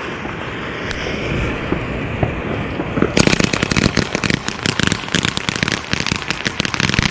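A lit consumer firework hissing steadily, then about three seconds in breaking into dense, rapid crackling pops that keep going.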